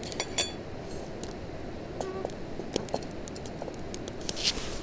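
Wood fire in a small camp stove crackling under a frying pan: scattered sharp pops over a steady hiss, with a brief metallic clink about a quarter second in and a short rush of noise near the end.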